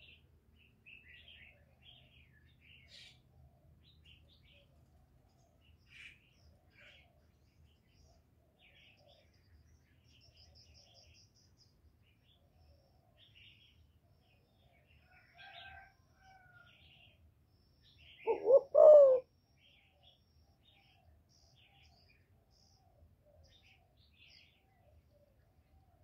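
Female spotted dove giving one short, loud coo of three quick notes about two-thirds of the way in. Faint chirping of small birds runs throughout.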